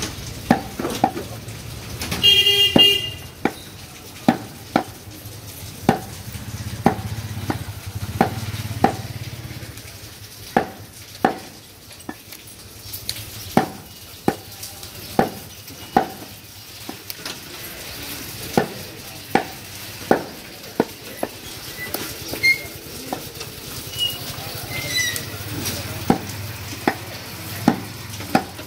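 A heavy butcher's knife chops beef against a round wooden chopping block: sharp knocks, a little more than one a second, with short pauses between runs. A vehicle horn sounds briefly about two seconds in.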